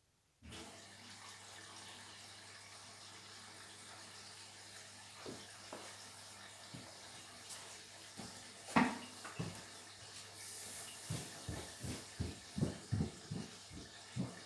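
Beko WTK104121W washing machine filling at the start of its wash: the water inlet valve opens suddenly about half a second in and water hisses steadily into the machine. Short knocks and thuds sound over it from about five seconds in, more often near the end.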